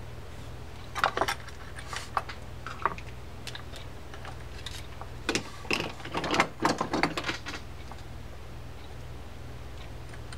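Small metal parts of a D.A.M. Quick spinning reel clicking and clattering as they are handled during reassembly: a few sharp clicks about a second in and again around two to three seconds, then a denser run of clicks from about five to seven and a half seconds.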